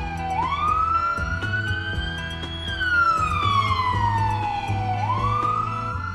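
A siren wailing: its pitch rises slowly for about two seconds, falls back over the next two and a half, then starts to rise again near the end. Background music runs underneath.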